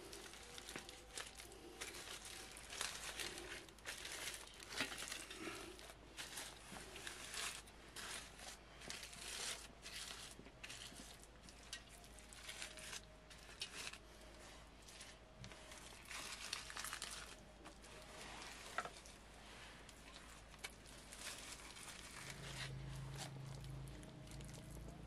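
Hands patting and smearing wet mud over a foil-wrapped food parcel, the aluminium foil crinkling irregularly under the fingers as mud is scooped up and pressed on.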